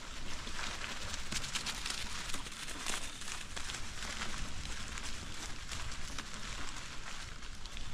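Bicycle tyres rolling over dry fallen leaves on a dirt trail: a steady crackling crunch, with a low rumble underneath.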